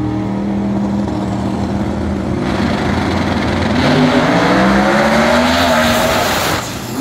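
Two no-prep drag race cars launching off the line and accelerating down the strip side by side. A steady engine note for the first couple of seconds, then a loud, rising engine roar as the cars pass, which cuts off suddenly near the end.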